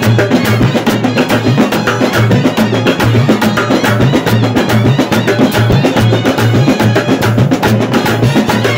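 Kerala bandset brass band playing live: side drums and a rack of marching drums beat a fast, dense rhythm under clarinets and a euphonium, which carries a repeating low bass line.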